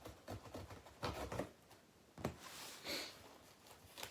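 Cardboard parcel being handled and opened: rustling and scraping with small knocks, a sharper knock about two seconds in and a brief rasp shortly after.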